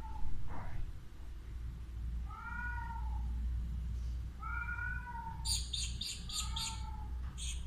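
Alexandrine parakeet giving three drawn-out, meow-like calls, with a burst of rapid high-pitched chattering in the second half, over a steady low hum.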